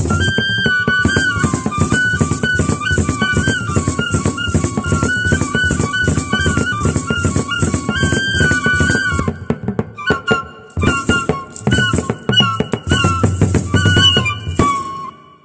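Instrumental music: a high, stepping lead melody over a fast shaker rattle and a drum beat. The music drops out for about a second around ten seconds in, then stops abruptly near the end.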